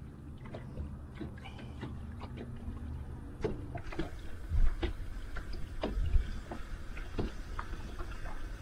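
Wind buffeting the microphone on a fishing boat, with low thumps and scattered light clicks and taps. A low steady hum stops about three seconds in.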